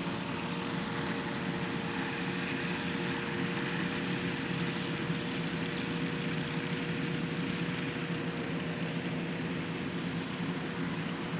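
RANS Coyote ultralight's two-stroke Rotax engine and propeller running steadily, with a constant hiss and a faint steady hum.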